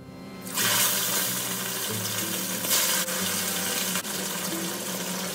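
Pieces of rohu fish frying in hot oil in an iron kadai: a loud, steady sizzle that starts abruptly about half a second in.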